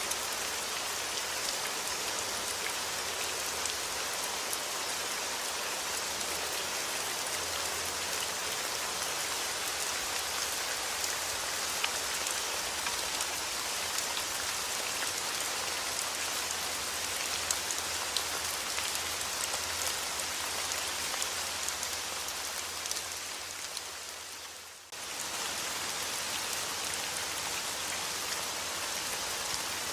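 Steady rain falling on a surface: an even hiss with scattered sharp drop ticks. About 23 s in it fades down over a couple of seconds, then cuts straight back in to full level.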